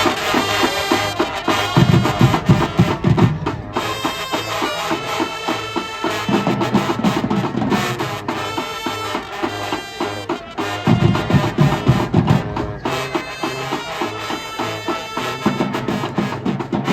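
Marching band playing loud, rhythmic music: drumline with bass drums driving under the brass section.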